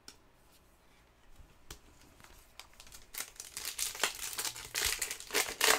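A sealed basketball card pack's foil wrapper being crinkled and torn open by hand. There are a few light ticks at first, then a run of dense crackling from about three seconds in, loudest near the end.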